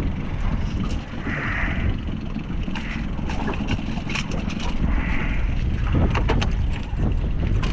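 Wind buffeting the microphone as a steady low rumble, with scattered knocks and clicks of handling on a boat.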